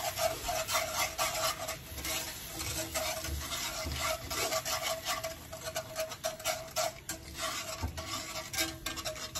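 A wire whisk stirring a thick sauce in a cast-iron skillet, its wires scraping and tapping the bottom of the pan in quick repeated strokes, with a steady hum underneath.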